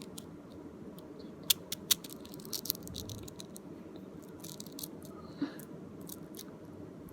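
Small magnets clicking and clacking together as they are handled, with a few sharp snaps about a second and a half in and a short run of clicks soon after.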